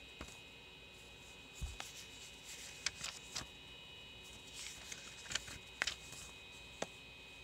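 Faint sound of a running 486 computer with its hard drives spinning: a steady high whine, with scattered soft clicks and rustles.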